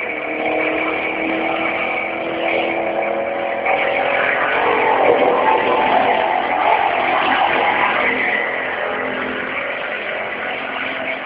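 A small engine or motor running steadily, with several humming tones and a thin, high, steady whine over them.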